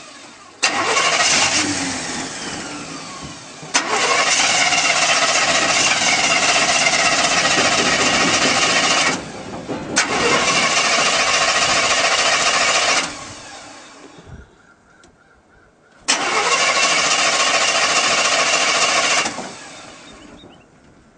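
1987 Chevrolet 305 V8 truck engine fed with wood gas, cranked and firing in four bursts of a few seconds each. Each burst starts abruptly, and the longer ones fade away over a second or so as the engine dies.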